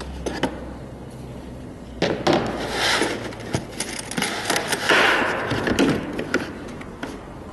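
Irregular clicks, knocks and rustling of things being handled, starting about two seconds in and dying down near the end.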